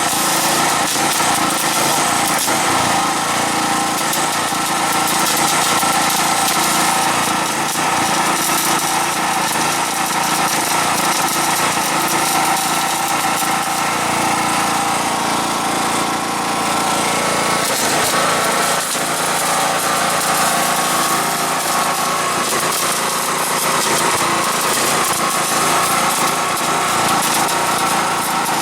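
A small engine running at a steady speed under a constant hiss.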